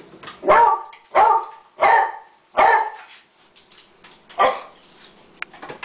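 Beagle barking: four loud barks in quick succession, then one more a moment later.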